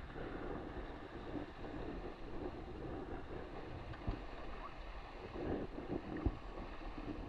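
Wind buffeting the microphone and water rushing and splashing past an RS600FF hydrofoil dinghy sailing at about 14 knots, with a couple of sharp knocks about four and six seconds in.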